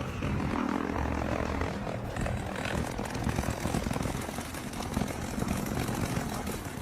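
A steady low mechanical rumble, as of an engine running.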